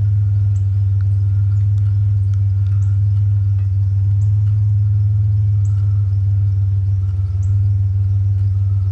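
Truck engine idling: a steady low rumble, with faint scattered light clicks over it.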